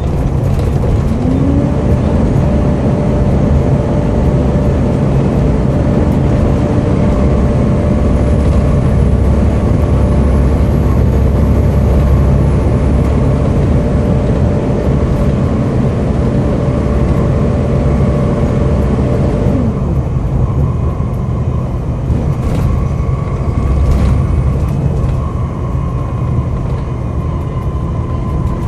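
Volvo B7TL bus's cooling fan whirring up about a second and a half in, holding a steady hoover-like whine, then winding down after about twenty seconds, over the engine's running and road rumble.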